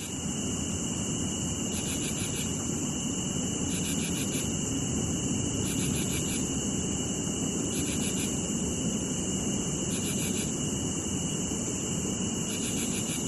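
Cicadas buzzing in a steady high-pitched chorus that swells in a pulsing rhythm every one and a half to two seconds, over a low steady rumble.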